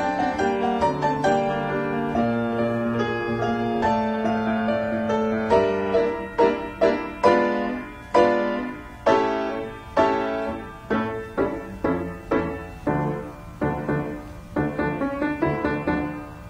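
Solo piano music: smoothly joined notes at first, then, about five seconds in, a run of separately struck chords that each die away, coming faster toward the end.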